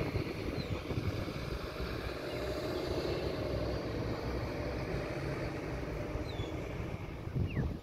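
Fire truck's diesel engine running steadily as the appliance pulls in, with no siren.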